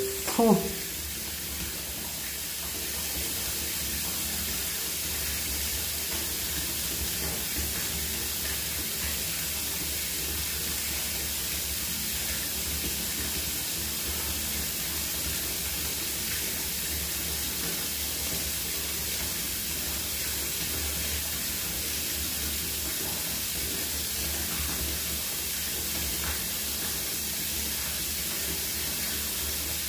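A steady hiss with a low hum underneath.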